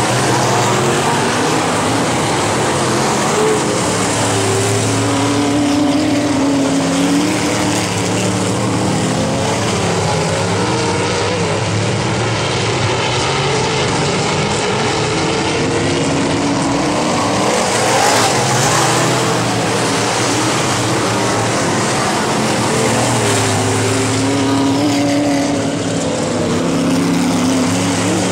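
A field of dirt-track modified race cars running their V8 engines at race speed. The engine notes rise and fall as the cars work around the oval, swelling loudest twice as the pack passes close by.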